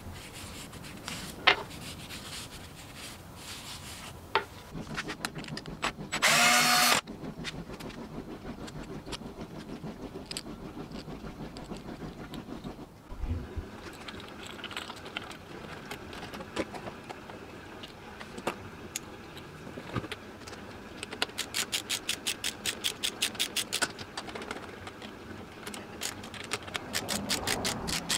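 Hand work with tools and wooden parts on a bike frame: handling noise with scattered knocks and clicks. About six seconds in comes a loud buzzing tone lasting under a second. From about two-thirds of the way through come fast runs of clicks, about ten a second.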